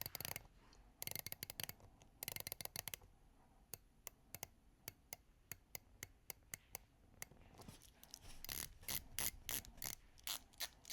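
Rotating dive-watch bezel on a Seiko Turtle being turned, clicking through its detents: quick runs of clicks at first, then slower single clicks about twice a second, growing louder near the end.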